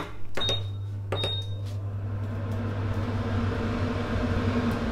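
Black glass-top electric cooktop being switched on: two short high beeps from its controls about a second apart, then a steady low electrical hum as it heats at low power.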